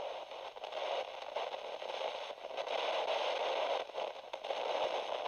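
Crackling static hiss, like radio static, with faint scattered clicks.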